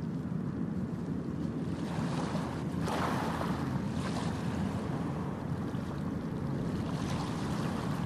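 Ocean waves on a beach: a steady surf, with one wave swelling up and washing in about three seconds in and a smaller one near the end.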